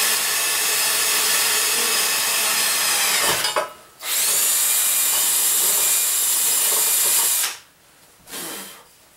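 Electric hand drill running as it bores a pilot hole in a metal vaporizer chamber. It winds down and stops about three and a half seconds in, starts again half a second later, and stops for good about seven and a half seconds in.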